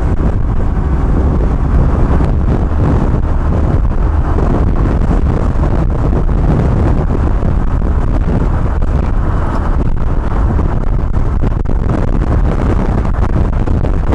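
G-Moto Cross X Pro 125 EFI moped engine running steadily under way, with heavy wind buffeting on the microphone.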